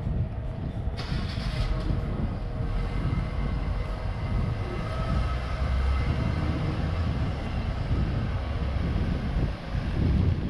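Steady low rumble of a train running, with a few faint steady tones over it.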